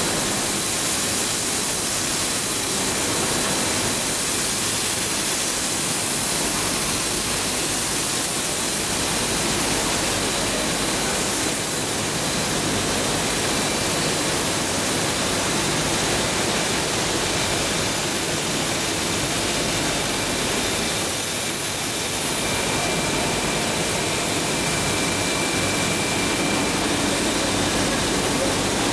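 Coil car mat production machinery running: a steady rushing noise with a faint high whine, with no change in level.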